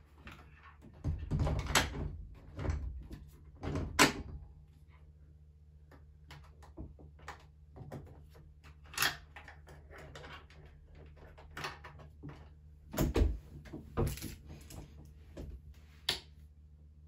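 Plastic housing of a popIn Aladdin SE projector ceiling light being pressed and fitted onto its ceiling mount: scattered clicks and knocks, the loudest clusters about a second in, around four seconds, and again around thirteen to fourteen seconds.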